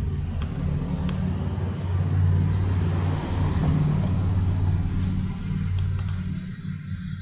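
Motor vehicle engine running close by with a low hum, growing louder toward the middle and fading near the end, as a car passes on the street.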